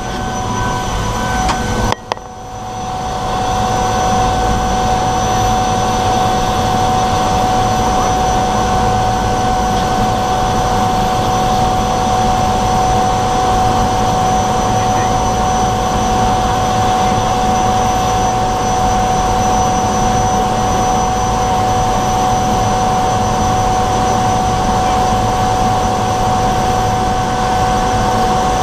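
de Havilland DHC-3 Otter seaplane's engine and propeller running steadily, heard close up from outside the cabin: a loud, even drone with a steady high whine over it. About two seconds in, after a short dip, the sound switches abruptly from the quieter cabin to this louder outside engine noise.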